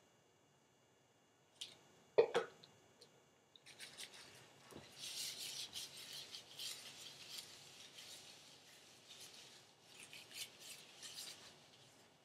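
Gloved hands rubbing protein treatment through hair, an irregular scratchy rustling that starts about three and a half seconds in. A sharp click comes a little after two seconds in.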